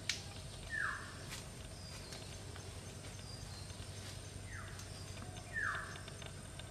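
Forest ambience: a bird gives three short, harsh calls that fall in pitch, over a steady high insect whine, with a few sharp clicks.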